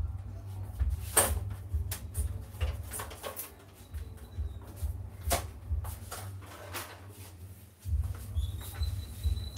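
Scattered clicks and knocks of plastic panels and screws being handled as the covers of a Canon iR3300 copier are taken off, over a low uneven rumble. A faint high steady whistling tone comes in near the end.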